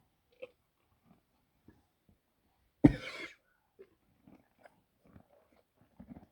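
A horse coughing once, a single loud harsh cough about three seconds in; the cough is put down to an allergy. Faint scattered knocks before and after it.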